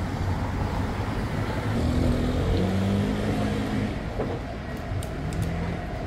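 Steady street noise of road traffic, with a faint low hum of engines running underneath.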